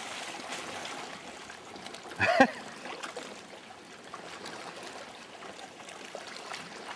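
Water lapping and trickling around a sea kayak on a calm sea. About two seconds in there is a single short, loud cry that drops in pitch at its end.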